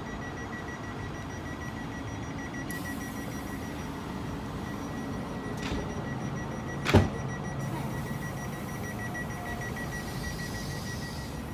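A steady, high-pitched electronic warning tone, rapidly pulsing, sounds without a break over the low hum of a stopped electric train. A sharp knock about seven seconds in is the loudest moment.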